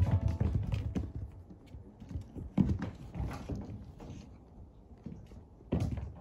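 Kittens' paws pattering and thumping on a wooden floor close to the microphone. A sharper knock comes about two and a half seconds in and another near the end.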